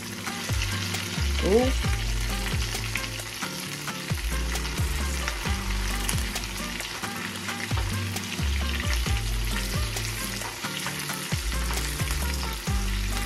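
Shrimp frying in hot oil in a skillet, sizzling steadily with many small crackles and pops, while a wooden spatula stirs and turns them in the pan.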